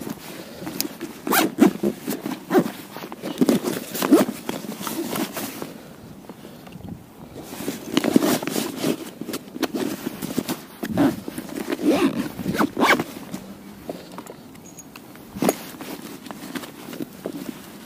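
A nylon backpack being handled and packed: zips pulled, fabric and straps rustling, with scattered short knocks and clicks of gear and cable being moved.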